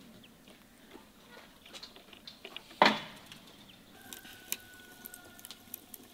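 A covered cast-iron pot cooking over a wood fire: scattered small crackles and ticks, one sharp knock just before the middle, and a faint thin whistle lasting about a second and a half near the middle.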